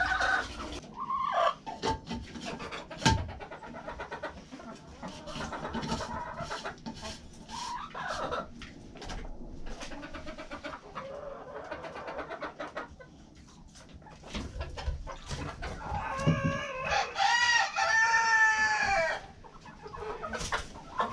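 A flock of chickens clucking, with a sharp knock about three seconds in. Near the end a rooster crows once, loudly, for about two and a half seconds.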